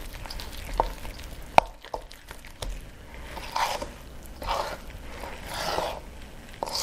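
A utensil stirring thick cake batter in a stainless steel bowl: wet scraping and squishing swishes, with a few sharp clinks against the bowl in the first half.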